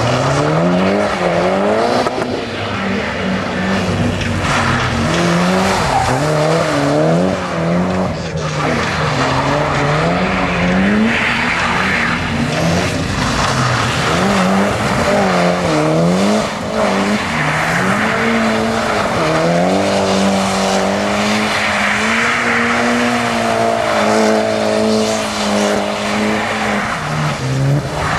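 Mitsubishi Lancer Evolution rally car's engine revving hard, the revs climbing and dropping every second or two, then held high for several seconds in the second half, as the car slides with its tyres skidding on a wet surface.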